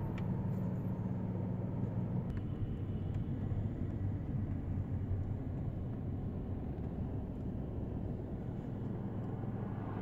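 A car's engine and road noise, heard from inside the cabin as it creeps slowly along in traffic: a steady low hum with no sudden sounds.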